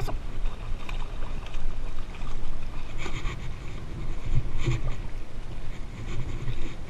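Wind buffeting the microphone as a steady low rumble that swells and fades, with a couple of short noisy bursts about three seconds and nearly five seconds in.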